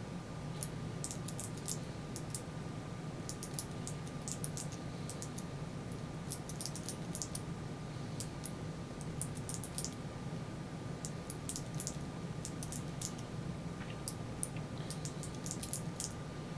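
Number wheels of a Master three-wheel combination padlock clicking in quick irregular runs as they are turned one detent at a time, with the shackle held under tension while searching for the combination. A steady faint hum sits behind.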